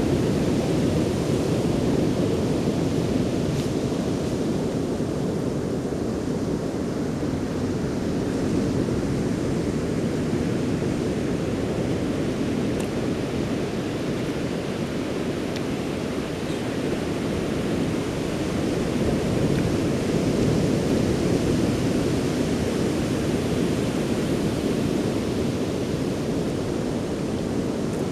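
Ocean surf breaking and washing on a beach shore: a continuous rush of water noise that swells slightly a few times.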